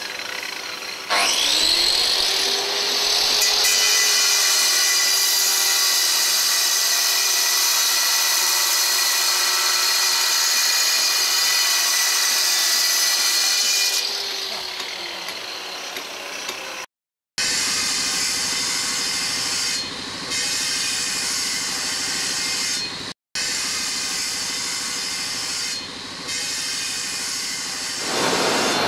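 Electric angle grinder spinning up about a second in, then cutting marble with a steady high whine and grinding rasp. Partway through it drops in level, and the sound cuts off abruptly twice near the end.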